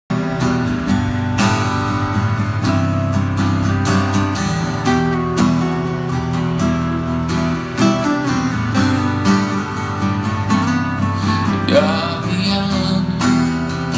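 Two acoustic guitars playing together, a continuous run of picked and strummed notes.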